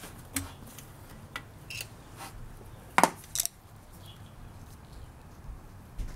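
Light metal clicks and clinks as a pick tool pries the old thermostat out of the BMW 528i's thermostat housing. A sharper, louder clink comes about three seconds in, with another just after.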